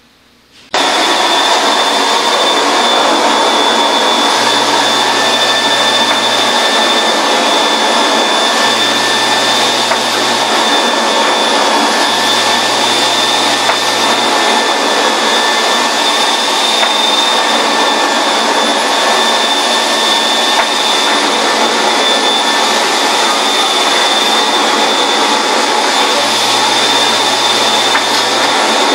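Powr-Flite carpet extractor's vacuum motor running loud and steady with a high whine, as its cleaning wand is pulled across the carpet. It starts suddenly just under a second in.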